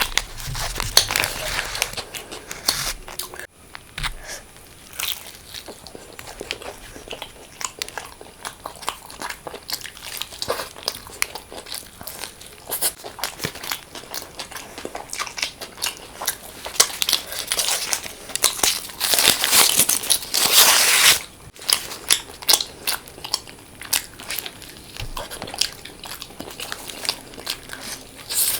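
Close-miked eating: a person biting and chewing food, a run of short clicking mouth sounds, with a denser, noisier stretch of eating about two-thirds of the way through.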